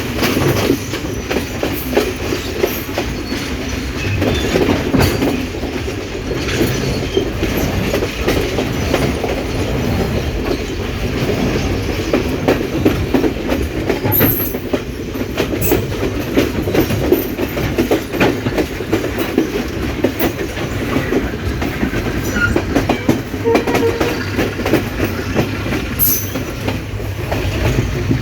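Train rolling along the track, with steady rumble and wheels clicking over rail joints, and a few brief high wheel squeaks about halfway through and near the end.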